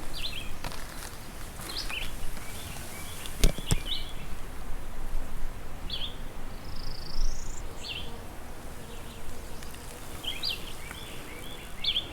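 Birds chirping in short calls every second or two, with one higher rising call about seven seconds in, over a steady background noise. A single sharp knock sounds about three and a half seconds in.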